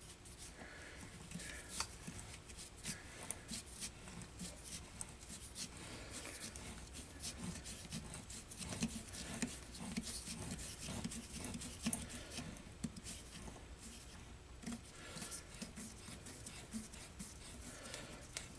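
Threading die in a knurled die holder turned by hand on the lathe, cutting a thread on small hex stock: faint, irregular scraping and rubbing with many small clicks.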